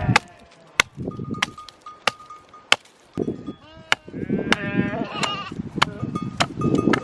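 A flock of sheep bleating, several wavering calls overlapping, growing busier from about halfway. Sharp clicks sound at a fairly even pace, roughly every two-thirds of a second.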